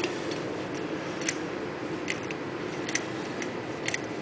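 Locking pliers working the rear spindle nut loose on a VW Cabrio drum hub: metal-on-metal clicks, about one a second, over a steady low hum.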